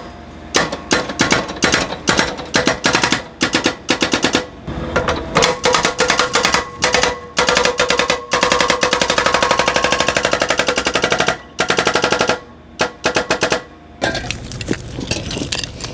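Jackhammer breaking up concrete, rapid hammering blows in bursts of a second or two, then one long run of several seconds in the middle, stopping a couple of seconds before the end.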